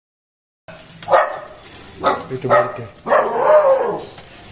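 Young street dog barking: three short barks, then a longer call about three seconds in that rises and falls in pitch.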